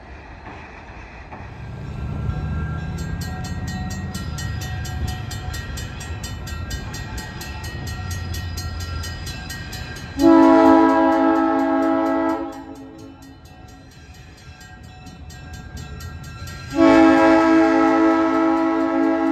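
Diesel locomotive air horn sounding two long blasts for a grade crossing, over the rapid steady ringing of the crossing bell and the low rumble of the approaching train.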